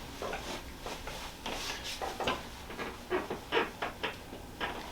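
Scattered soft clicks, small knocks and rustling from handling a patient on a chiropractic treatment table.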